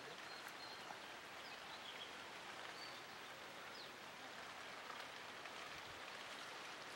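Faint, steady crackling hiss of smouldering charcoal embers under clay-packed fish, with a few faint high chirps.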